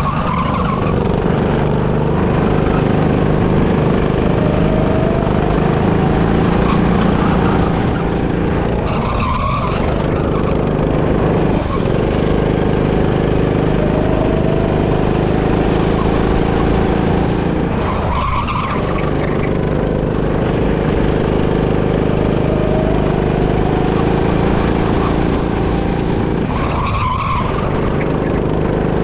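Go-kart motor heard from onboard at racing speed, droning steadily over tyre and road noise. About every nine seconds the drone dips and swings back up as the kart slows for and powers out of the same corner on each lap.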